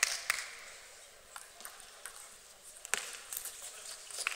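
A few scattered sharp clicks of a table tennis ball, the loudest about three seconds in, over low background noise in a large hall.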